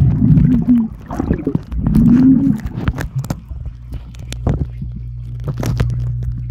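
Muffled underwater sound picked up by a camera held beneath the surface of a swimming pool: a low rumble with many clicks and knocks of moving water, and a low steady hum that is clearest in the second half. Twice in the first few seconds a muffled voice-like sound rises and falls.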